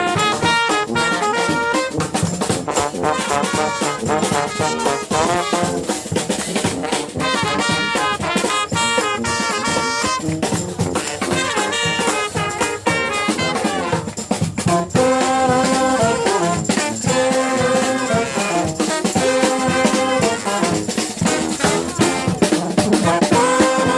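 Brass band playing live in New Orleans second-line style, the horns playing over a steady drum beat; from about fifteen seconds in the horns play longer held notes.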